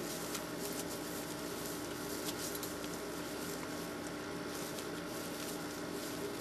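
Steady background hum and hiss with a few faint soft ticks; no distinct event stands out.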